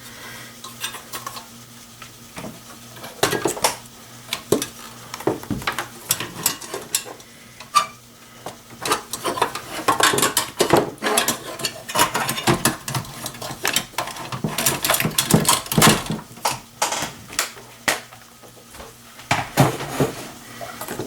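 Irregular metallic clinks, clatters and knocks from a hard drive and a metal PC case being handled, busiest in the middle.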